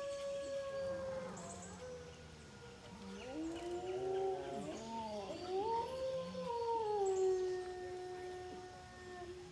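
A pack of wolves howling together in chorus: several long, overlapping howls at different pitches, some held steady and others sliding up and down, fading briefly and then swelling again before tapering off near the end.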